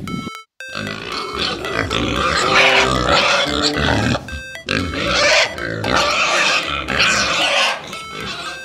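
Pigs grunting and oinking in repeated clusters over background music, starting after a brief silent gap just after the start.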